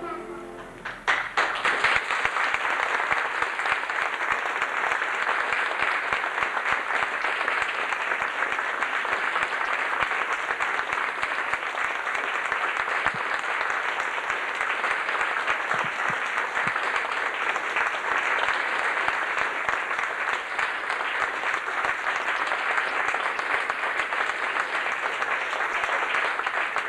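Audience applauding steadily, beginning about a second in.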